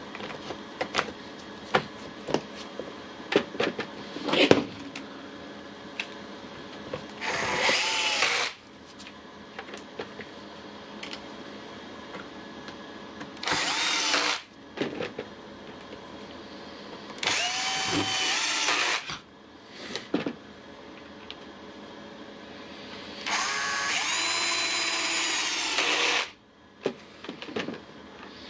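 A cordless power tool's electric motor runs in four short bursts, each spinning up quickly and then stopping, with clicks and knocks of parts being handled in between.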